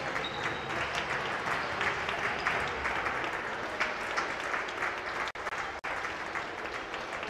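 Applause: many people clapping in a sports hall, with the sound cutting out twice for a split second about five seconds in.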